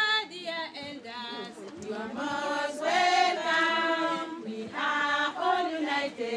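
A group of voices singing together, with long held notes in short phrases.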